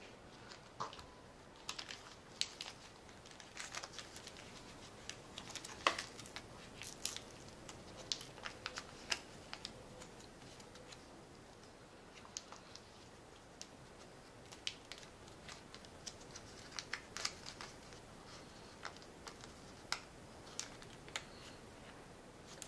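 A sheet of origami paper handled and creased by fingers, giving scattered soft crinkles and crisp clicks, in clusters with short pauses between.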